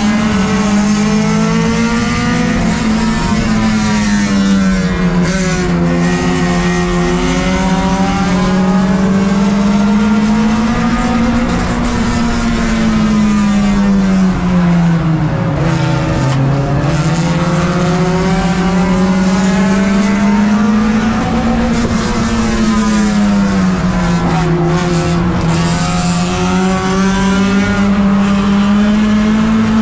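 A tuner-class race car's four-cylinder engine, heard from inside its cabin at racing speed. The engine note falls and rises again a few times, easing off into the turns and pulling back up down the straights, over steady tyre and road noise.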